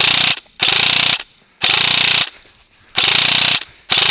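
VFC HK416 airsoft electric rifle (AEG), set up for about 33 rounds a second, firing short full-auto bursts: a fast gearbox rattle with the pops of the shots, five bursts of about half a second each with short pauses between them.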